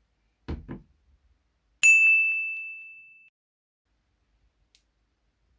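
A single bright ding, ringing on one clear tone and fading away over about a second and a half, preceded by two short low thuds.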